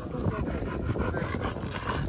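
A large pit bull-type dog making rough, irregular noises close by.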